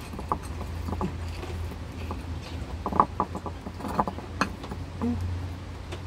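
Steady low rumble of heavy rain, with scattered irregular taps and clicks.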